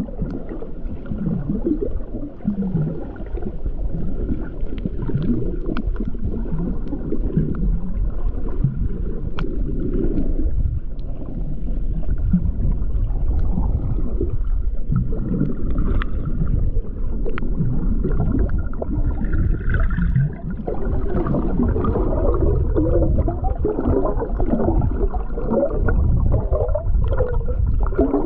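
Muffled gurgling and bubbling of water, an irregular churning sound.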